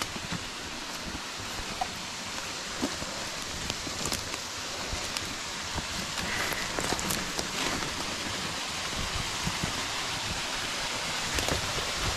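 Steady rushing of a small woodland waterfall, slowly growing louder, with scattered footsteps crunching on dry leaves and twigs.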